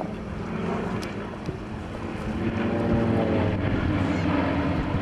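Engines of a formation of aerobatic display aircraft droning overhead. The engine note bends upward and grows louder about three seconds in. Wind buffets the microphone.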